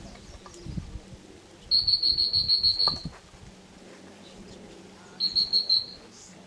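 Dog-training whistle blown in two runs of rapid short toots at one shrill high pitch, the second run shorter: the kind of signal a handler uses to call a retriever in.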